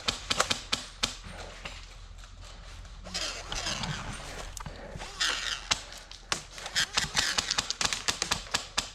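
Irregular sharp clicks and knocks, with two stretches of rustling noise around the middle and a quicker run of clicks near the end.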